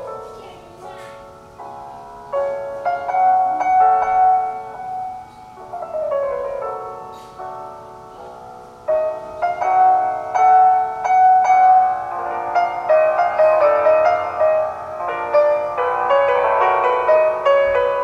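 Piano music: separate ringing notes with falling runs, growing louder and fuller from about nine seconds in.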